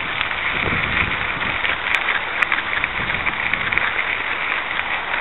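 Mountain bike tyres rolling over a dirt and gravel trail: a steady, gritty crackling hiss, with a few sharp clicks about two seconds in.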